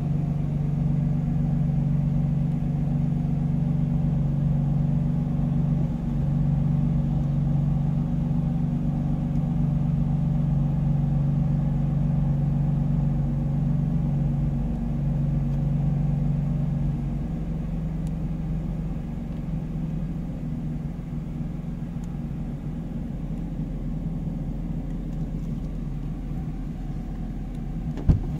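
BMW M4's twin-turbo inline-six with M Performance exhaust idling steadily, heard from inside the cabin; the idle drone eases slightly about two-thirds of the way through. A sharp knock near the end.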